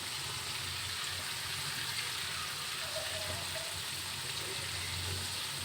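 Flour-coated chicken pieces deep-frying in hot oil in a kadai over medium-low heat, a steady, even sizzle.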